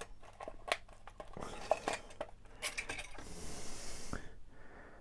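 A plastic snack packet being handled and opened: scattered small clicks and crinkles, with a longer rustle of the wrapper about three seconds in.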